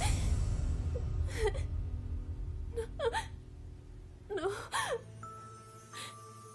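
A woman whimpering and gasping in her sleep: three short distressed cries about a second and a half apart, the last the loudest, the sounds of a nightmare. Soft sustained music plays underneath, louder at first and fading down over the first second.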